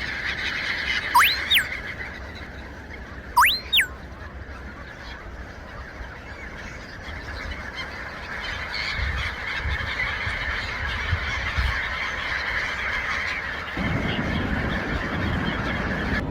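A flock of birds calling continuously, with two loud calls that rise steeply and fall back, about a second and three and a half seconds in. A low rumble joins near the end.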